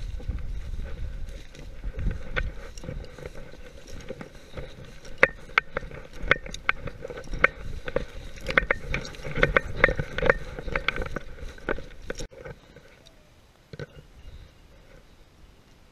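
Footsteps and tall dry grass brushing and crackling against a walker's legs and shotgun, with a run of sharp snapping clicks in the middle. The noise stops abruptly about twelve seconds in and leaves only faint background.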